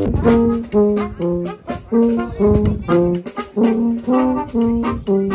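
Street brass band playing a lively jazzy tune: trumpets, trombone and tuba over a steady drum beat, with short, punchy notes.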